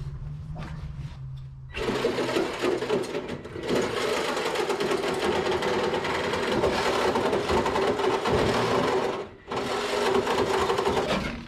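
Power saw cutting through the Early Bronco's old sheet-metal floor pan, a rapid, steady mechanical cutting sound that starts about two seconds in and breaks off briefly near the end before resuming.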